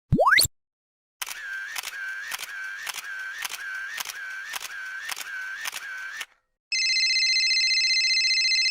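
Camera shutter sound effect clicking over and over, about two and a half times a second, for about five seconds. It is preceded by a brief rising whistle-like tone. Near the end a telephone ringing effect starts, a steady fluttering ring.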